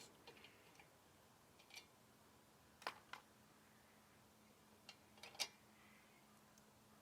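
A handful of faint, short clicks and taps, spread over mostly near silence, from a tool and the carburetor's mounting fasteners as they are unscrewed.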